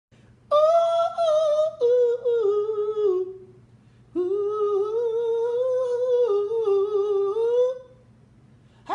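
A woman humming a slow tune in two long phrases of held notes, stepping down in pitch, with a short pause between them.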